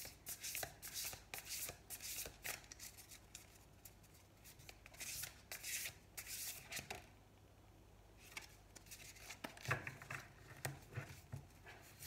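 A deck of oracle cards being shuffled by hand: quick papery flicks, one after another, pausing briefly past the middle, then a few more flicks and some duller knocks near the end.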